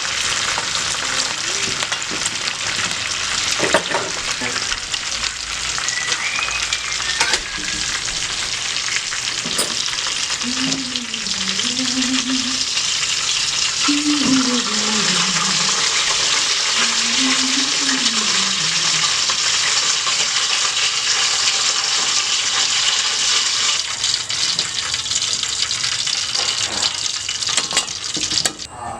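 Pigeon meat frying in hot oil until crisp, a dense, steady sizzle that cuts off near the end.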